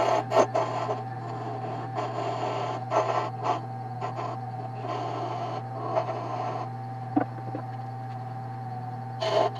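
Wood lathe running with a steady motor hum, while a turning tool shapes the spinning wooden peg in repeated short cuts, each a brief scraping sound.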